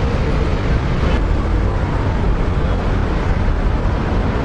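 Diesel engines of heavy construction machinery, an excavator and dump trucks, running steadily with a deep, even rumble.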